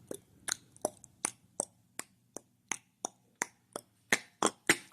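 A run of sharp, even taps or clicks, about three a second, coming a little faster near the end, over a faint low hum.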